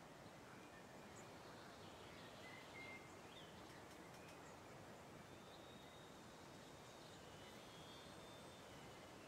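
Near silence: faint pond-side outdoor ambience with a few faint, short bird calls, a couple around the middle and a longer run near the end.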